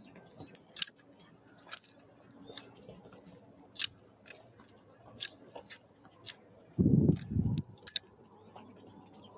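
Small wild birds pecking and cracking seeds at a feeder close to the microphone: sharp, irregular clicks and taps. Two heavy, dull thumps come about seven seconds in.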